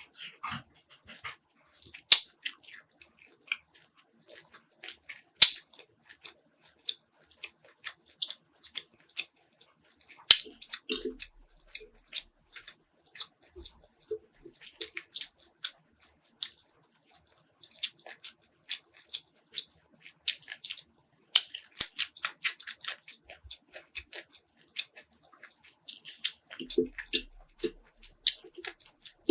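Close-miked eating of Buldak hot chicken noodles and crispy fried pork: irregular crunches, mouth clicks and smacks. A few short low pitched sounds come about 11 and 27 seconds in.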